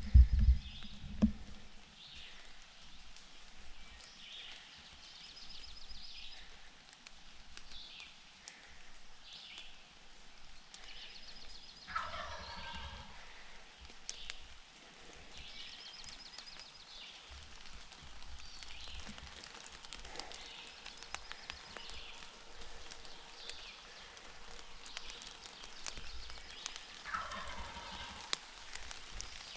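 A male wild turkey gobbling twice, about 12 seconds in and again near the end, each a rattling call of about a second. Songbirds chirp throughout, and a few low thumps come at the start.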